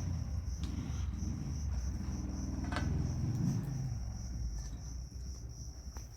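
Crickets chirping steadily, over a louder low hum that shifts in pitch.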